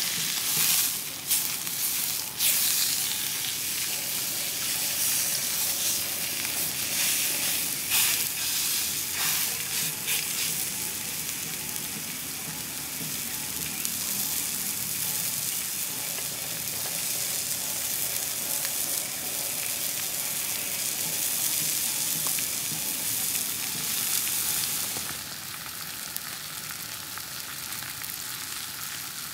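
Beef steak sizzling in a hot nonstick frying pan with garlic cloves, a steady high hiss. A few sharp clicks in the first ten seconds as metal tongs handle and turn the steak, and the sizzle drops quieter for the last few seconds.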